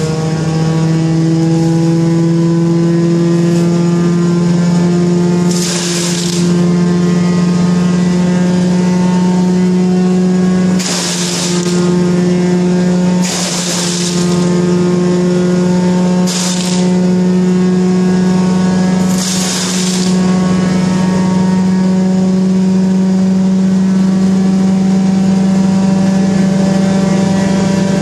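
1974 Wayne wood chipper running steadily at speed, with short hissing, crackling bursts about six times as brush is fed in and shredded, each lasting about a second.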